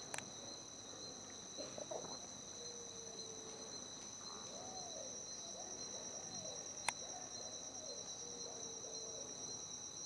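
Rainforest insects trilling steadily at two high pitches, with a bird giving low whistled notes from about two seconds in until near the end, some held level and some rising and falling. Two faint clicks.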